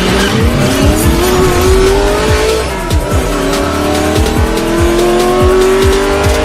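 Electronic intro music with a steady beat, carrying a race-car engine sound effect that revs up, drops back about halfway through as if shifting gear, and revs up again.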